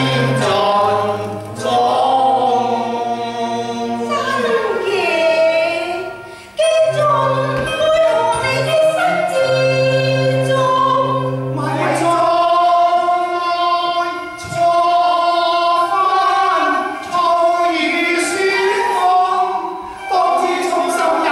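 A mixed choir of men's and women's voices singing a Cantonese opera song (yuequ) together, in long held phrases with brief breaks between them.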